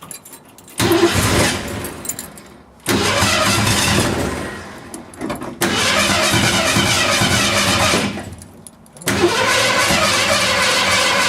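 Freshly rebuilt Ford 289 two-barrel V8 in a 1968 Mercury Cougar being cranked by the starter in four bursts of one to three seconds with short pauses between. The engine does not catch and run: these are first-start attempts after the rebuild.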